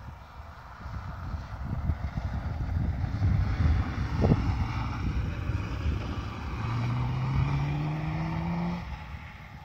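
Motorcycle engine running out on the lake ice, its pitch rising steadily as it speeds up about two-thirds of the way in, then dropping away. Wind buffets the microphone throughout, with a single knock a little before halfway.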